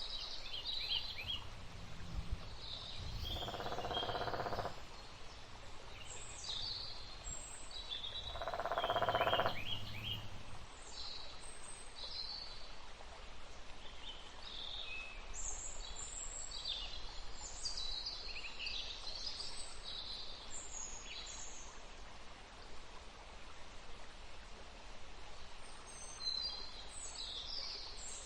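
Ambient forest soundscape: small birds chirping in short scattered calls over a steady background hiss. Two louder sounds of about two seconds each come in, a few seconds in and again about nine seconds in.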